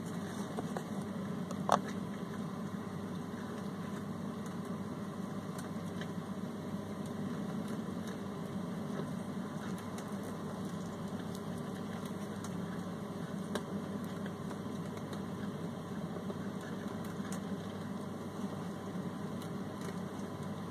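A steady low hum, like a small machine running, with a few faint clicks and one sharper click about two seconds in.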